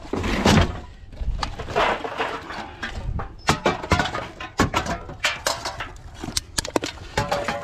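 Empty metal cans clattering and crinkling as gloved hands rummage through them in a steel drum. The clatter comes in many quick knocks from about three and a half seconds in, with brief metallic rings near the end, after a rustling scrape in the first second.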